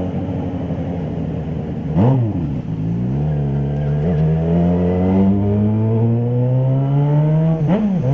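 Yamaha XJ6's 600 cc inline-four engine running under way, its pitch climbing slowly as the bike accelerates. A quick rev rises and falls about two seconds in and again near the end.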